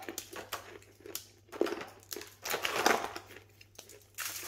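Hard peanut brittle snapping and crackling as it is broken up by hand, pieces clicking into a plastic container over crinkling aluminium foil. A series of sharp snaps, with a longer dense crackle about two and a half seconds in.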